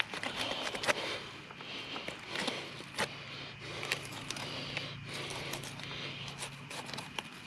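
Knife work and hide handling on a freshly killed feral hog being skinned for its backstrap: scattered soft scrapes and clicks, the sharpest near the start, about a second in and about three seconds in. A faint steady low hum runs through the middle.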